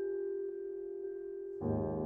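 Vibraphone and piano playing slow, quiet chamber music. A held chord rings steadily, then about a second and a half in the piano sounds a new, fuller chord with low notes.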